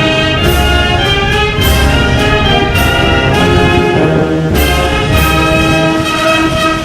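Brass band or orchestral music, with trumpets and trombones playing sustained chords and a melody, punctuated by percussion strikes every second or so.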